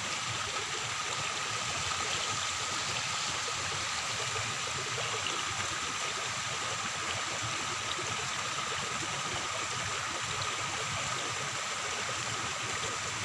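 Floodwater running steadily, an even rushing hiss of flowing water, with a faint steady high tone over it.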